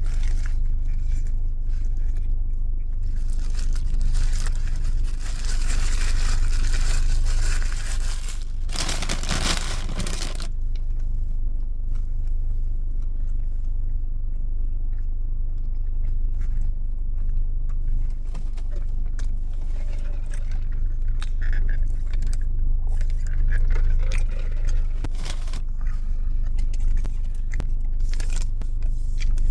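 A person eating fast food close to the microphone: chewing and crunching, with paper wrapper rustling and scraping, loudest from about four to ten seconds in. A steady low hum runs underneath.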